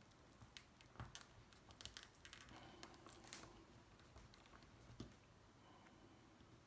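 Faint, irregular crackles and ticks of adhesive releasing as the touchpad of a BMW iDrive controller is pried up with a plastic wedge tool.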